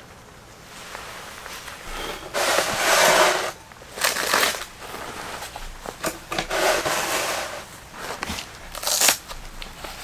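Rustling and crinkling as camping gear is handled and rummaged out of a plastic crate. The sound comes in irregular bursts, loudest about a third of the way in, with a few light knocks between them.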